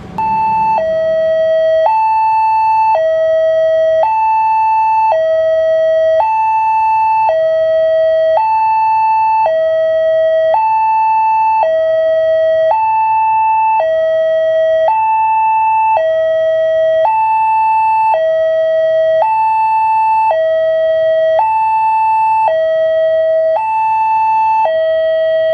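Electronic two-tone railway level-crossing warning alarm, alternating evenly between a higher and a lower tone about once a second, sounding for an approaching train.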